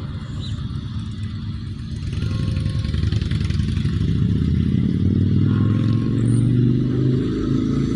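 A motor vehicle's engine, getting louder from about two seconds in and loudest near the end.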